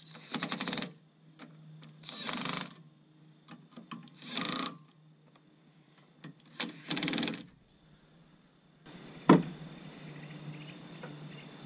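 Cordless drill running bolts in, in four short bursts of under a second each with a fast rattle, sending the bolts that hold the PTO housing to the clutch housing home snug but not torqued. A single sharp knock follows near the end.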